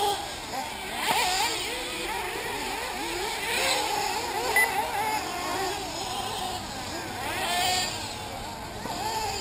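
Several nitro engines of 1/8-scale RC buggies racing around the track, their pitch rising and falling over and over as the cars accelerate and brake.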